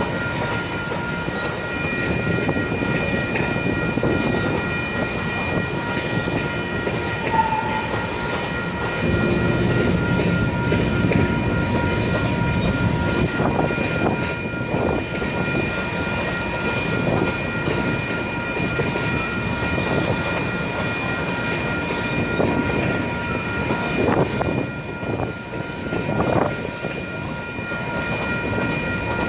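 Cars of a long grain train rolling slowly past: a steady rumble with wheels clacking over rail joints, and several steady high-pitched tones throughout, typical of wheel flanges squealing on a curve.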